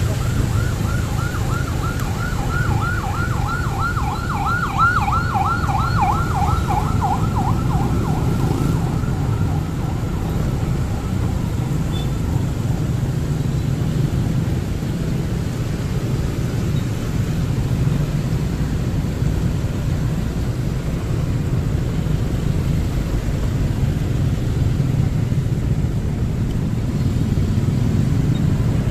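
An emergency vehicle's siren yelps in quick sweeps, about four a second, growing louder and then fading out by about eight seconds in. Underneath, the steady low rumble of a motorbike ride through traffic continues.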